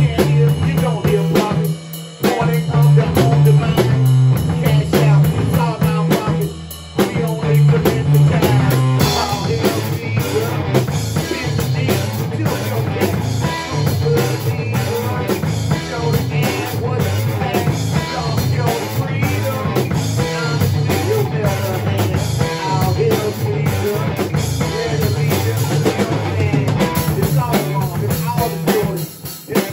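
A small rock band playing live: drum kit, electric guitar through an amp, and a man singing into a microphone. The music drops out briefly about two seconds in and again about seven seconds in, then runs on steadily.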